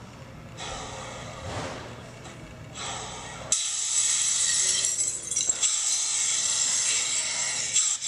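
Zombie growling and snarling sound effects from the Walking Dead wine label's augmented-reality animation. A louder, harsher stretch starts suddenly about three and a half seconds in.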